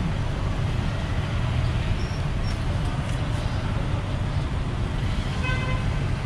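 Steady low rumble of a motorbike tuk-tuk riding in traffic, engine and road noise together. A vehicle horn toots briefly near the end.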